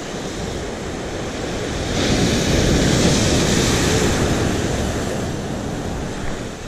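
Ocean surf breaking on a rocky shore: a large wave crashes and washes over the rocks, swelling about two seconds in and then slowly fading as the foam drains back.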